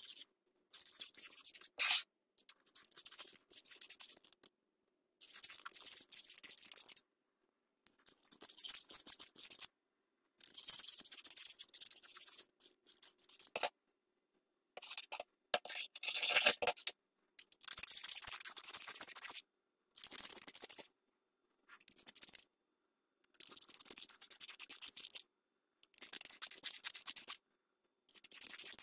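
Needle file rasping along the rough edges of old steel scissors to smooth them, in runs of short strokes a second or two long with brief pauses between.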